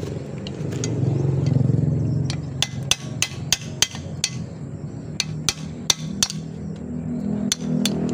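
A flathead screwdriver tip knocking and prying against the snap ring and yoke of a Toyota Kijang propeller-shaft cross joint, working the ring out: a string of sharp, irregular metal clicks starting about two seconds in. A low rumble swells in the first two seconds.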